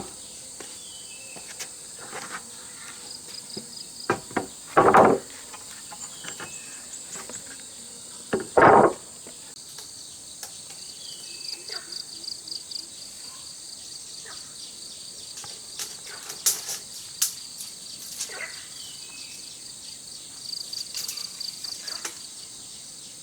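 Steady chirring of insects, broken by scattered short knocks and two louder, longer bursts of knocking about five and nine seconds in.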